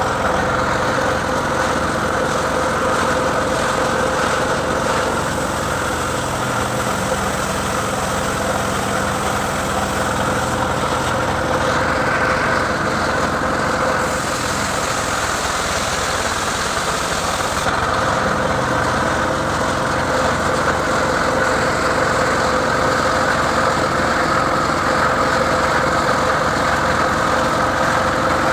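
An engine running steadily at an even speed, with a constant hum and no clear rises or falls.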